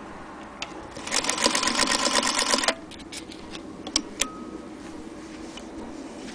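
Singer Featherweight 221K electric sewing machine stitching through fabric at speed, a rapid even clatter that lasts about a second and a half and stops abruptly. A few separate sharp clicks follow.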